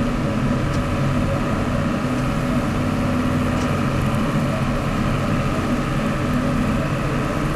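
1982 John Deere 4040 tractor's diesel engine running steadily at a constant speed while the tractor drives.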